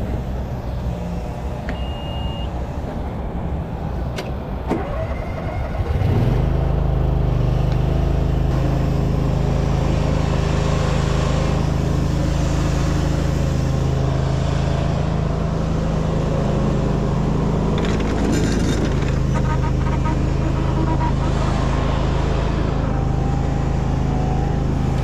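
Stiga front-deck ride-on mower's engine running as it is driven. About six seconds in it revs up and then holds a steady, louder, higher speed.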